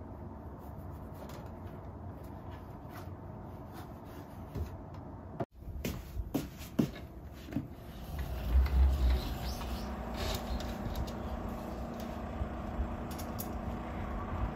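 Laundry being handled and hung on a balcony drying hanger: scattered sharp clicks and rustles over a steady low background hum, with a louder low rumble about eight to nine seconds in.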